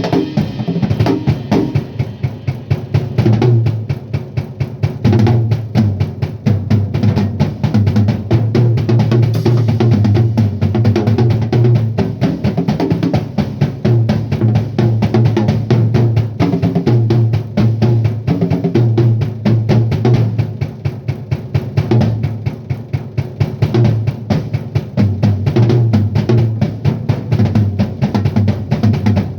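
Drum kit played in a continuous groove, snare and bass drum hits with fills, tuned for a classic 1970s-style drum sound.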